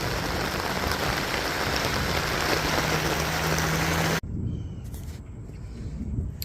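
Heavy rain pouring down steadily, a dense even hiss. It cuts off suddenly about four seconds in, leaving a much quieter background.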